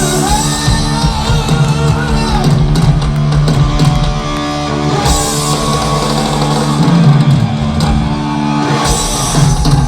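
Heavy metal band playing live and loud: distorted electric guitar, bass and drum kit, with some singing.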